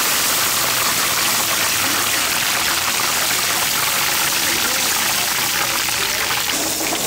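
Oil sizzling and crackling steadily under a skewer frying on a flat-top griddle.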